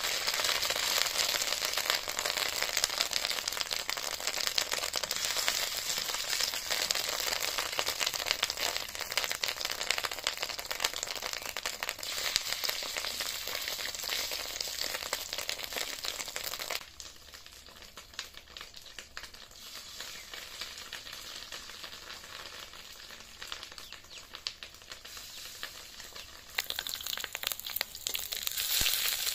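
Fish roe batter sizzling and crackling as it fries in hot oil in an aluminium kadai. The sizzle drops suddenly to a quieter level about halfway through and comes back loud near the end.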